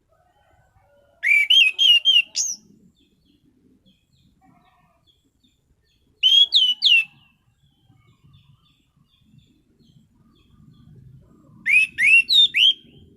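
Anis cendana thrush singing: three short phrases, each a quick run of four or five sharp, upward-sweeping whistled notes, about five seconds apart.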